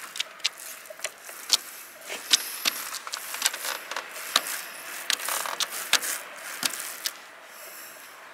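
Paint roller being worked back and forth over Galvalume steel roof panels, laying on a wet mid-coat of roof paint: a steady hiss broken by many sharp, irregular clicks and ticks of the roller frame.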